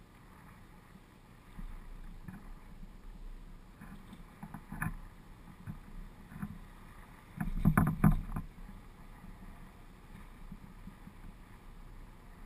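Chairlift chair's grip rolling through the sheaves of a lift tower: a run of clacks and knocks, loudest in a tight cluster about eight seconds in, over a faint steady rumble.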